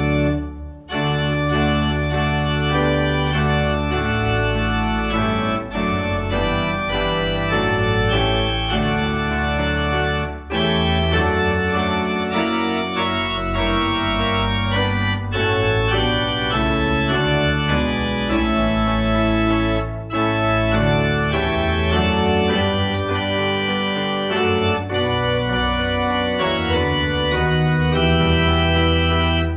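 Organ playing a hymn tune in held chords, with no singing. There is a short break about a second in as a new verse begins, and brief breaths between phrases.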